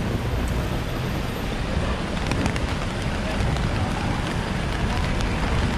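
City street in the rain: a steady hiss of rain on wet pavement over a low rumble of traffic.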